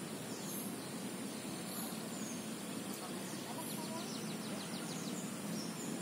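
Outdoor garden ambience: steady background noise with an insect's thin, high, continuous buzz and faint regular chirps, and a few short bird calls in the middle.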